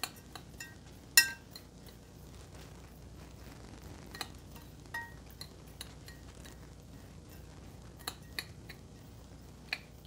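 A spoon stirring dry crushed biscuit and hazelnut crumbs in a glass bowl, clinking now and then against the glass. One sharp, ringing clink about a second in is the loudest, and lighter clicks and clinks are scattered through.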